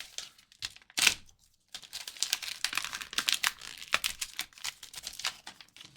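Crinkling plastic packaging and small plastic clicks as graded trading cards are unwrapped and handled: one sharp rustle about a second in, then near-continuous crackling and clicking that stops just before the end.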